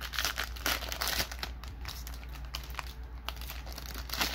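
Foil trading-card pack wrapper crinkling as it is opened, in irregular bursts, busiest in the first second and again near the end.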